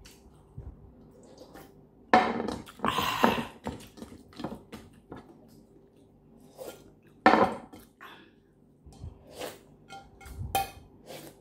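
Slurping and licking at sauce on a large ceramic plate held up to the mouth, in a series of short, separate bursts, with the plate knocking lightly as it is handled.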